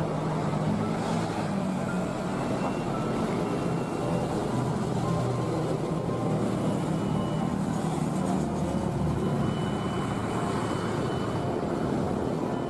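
Jet engines of a Boeing 737-500 (CFM56-3 turbofans) running steadily as the airliner rolls along the runway: a continuous rumble with faint high whines drifting in and out.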